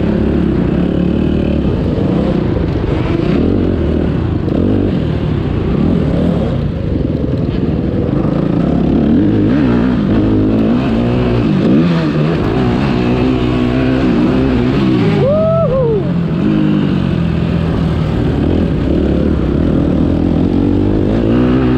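Motocross bike engine revving up and down as it is ridden round the track, with one brief sharp rev that shoots up and drops back about fifteen seconds in.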